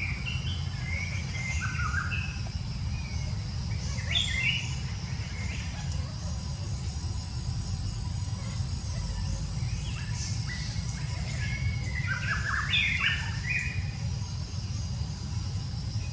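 Bird calls: short chirps in scattered clusters, loudest about four seconds in and again around twelve to thirteen seconds, over a steady high hum and a constant low rumble.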